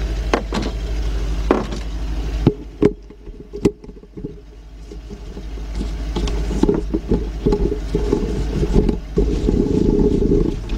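Lincoln Navigator 5.4-litre V8 idling rough with a slight misfire, and a few sharp tool clicks a little under 3 and 4 seconds in.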